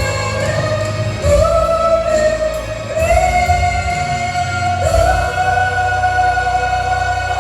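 Vocal group singing a gospel song in long held notes over instrumental accompaniment, moving to a new note about every two seconds.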